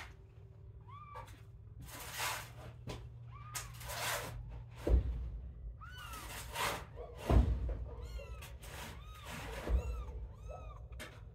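Nursing kittens mewing: many short, high-pitched mews, one after another, with a few low thumps from the litter jostling against the mother.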